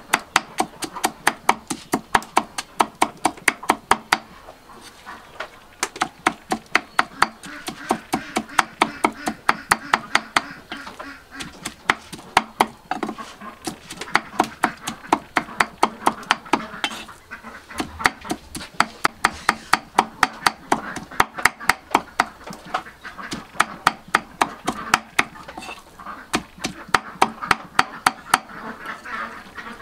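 Meat cleaver chopping raw pork on a thick wooden chopping block, mincing it in quick, even blows about five a second, in runs with a few short breaks.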